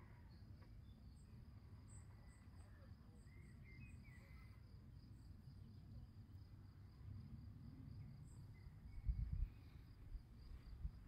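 Faint outdoor ambience: insects chirping in a steady, fast pulsing trill, with a few short high chirps over a low wind rumble on the microphone. The rumble rises briefly and loudly about nine seconds in.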